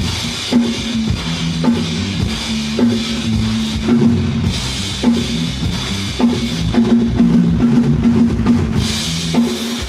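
Live band playing at a sound check: a drum kit with a heavy beat about once a second, cymbals swelling in and out, and moving low bass notes underneath.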